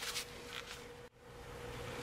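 A toothbrush scrubbing flux off a circuit board with alcohol: a couple of short brushing strokes, then the sound cuts out about a second in, leaving faint room tone with a steady hum.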